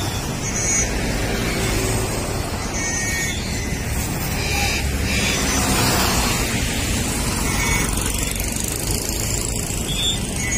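Steady road traffic noise with motorcycles passing close by, and a few short faint high tones now and then.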